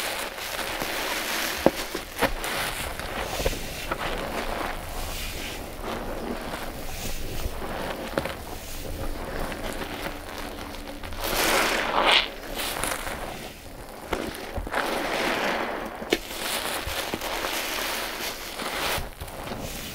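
Wet sponges loaded with a powder paste being squeezed by hand: a wet, hissing noise that swells and fades with each squeeze, with a few small clicks, loudest about twelve seconds in.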